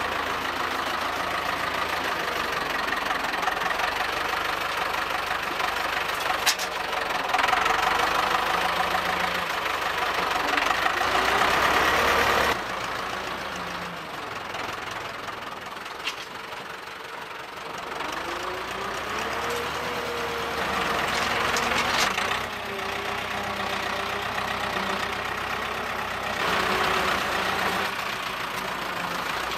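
Diesel tractor engine running and revving up and down as its front loader lifts and tips manure into a spreader trailer, with a few sharp clanks.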